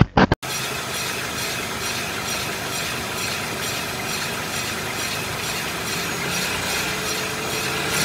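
Car's front brake disc spinning in its caliper with the wheel off, the pads rubbing on the disc: a steady metallic scraping whir, the brake noise from disc and pads.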